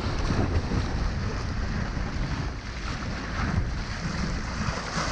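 Wind buffeting the microphone, with small sea waves washing and foaming against the shore rocks.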